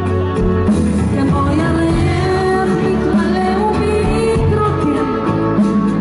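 Live band music played through a concert PA and heard from among the audience: a voice singing over bass and guitar, loud and steady.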